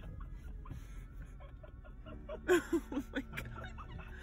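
A low steady rumble from inside the car, then, about halfway through, a person laughing in a few short, quick bursts.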